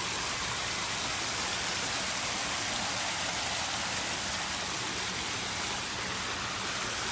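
Water falling in a fountain's small waterfall, splashing in a steady, even rush.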